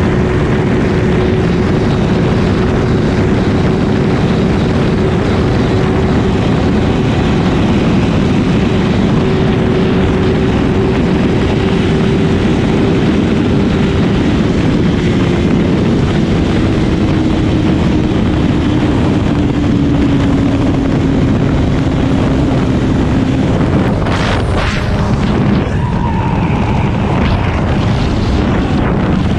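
Honda CBR1000RR inline-four engine running at speed, with heavy wind rush over the on-board microphone. The engine's steady note slowly drifts lower over the middle of the stretch, and a few short sharp noises come near the end.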